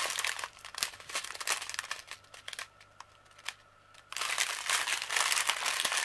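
Small clear plastic bags of diamond painting drills crinkling as they are handled, with small clicks. The crinkling dies down for a couple of seconds in the middle and starts up again about four seconds in.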